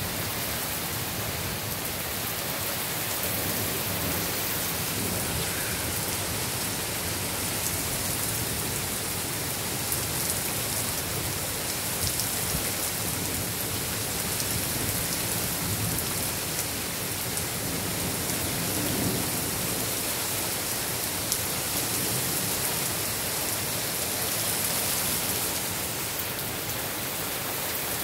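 Steady heavy rain from a severe thunderstorm, a constant hiss with many small drop ticks striking a surface.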